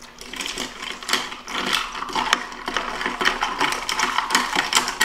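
A spoon stirring a glass of iced milk coffee, clinking quickly and repeatedly against the glass.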